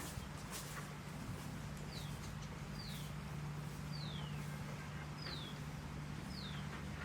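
A bird repeating a short, falling whistle five times, about once a second, starting about two seconds in, over the steady low rush of flowing water.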